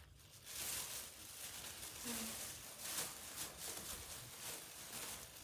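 Plastic bags rustling and crinkling as hands pack portions of food, with a brief faint voice about two seconds in.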